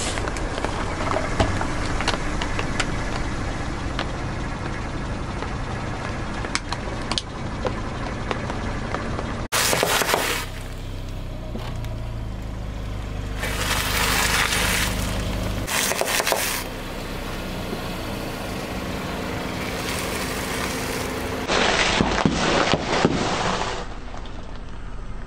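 A car tyre rolls slowly over hard plastic toy fruit, crackling with many sharp snaps and cracks. About nine seconds in it changes to the tyre crushing packets of dry instant noodles, crunching in several long bursts over a low rumble.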